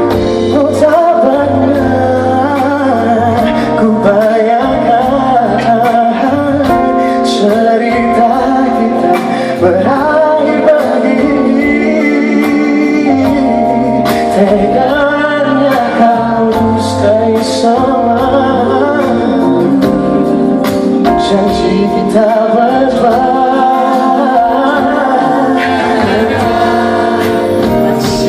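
Live performance of a slow pop ballad: singing over band accompaniment.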